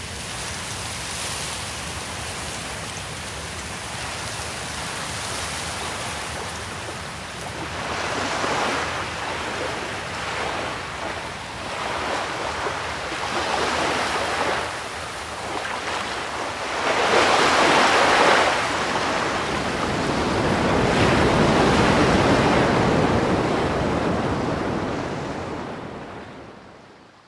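Ocean surf: waves breaking and washing up the shore, swelling in several surges with the loudest about two-thirds of the way through, then fading out near the end.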